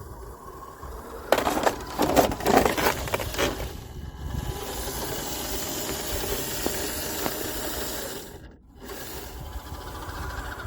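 WPL D12 RC mini truck: about two seconds of clattering knocks, then its small electric motor and gears running with a steady whir that cuts out briefly near the end.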